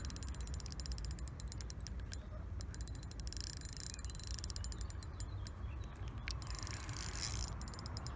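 Fishing reel's clutch (drag) clicking in fast runs of clicks with short pauses between them, as a hooked carp pulls line off against the slipping clutch.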